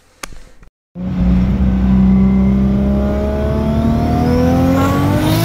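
Turbocharged RB25DET straight-six in a Nissan 240SX accelerating, heard from inside the cabin. The engine cuts in about a second in and its note climbs steadily, with a thin high whine rising along with it.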